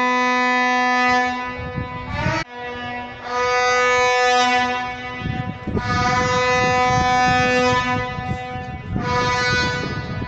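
Vuvuzela blown by a fan in long, steady single-pitch blasts, one after another with short breaks between them.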